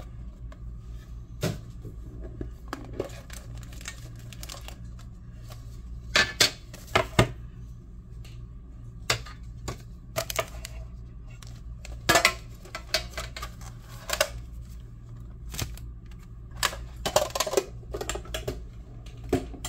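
Hands opening a trading-card hobby box and handling its wrapped card packs: irregular crinkles, rustles and light taps, louder in several bursts. A steady low hum runs underneath.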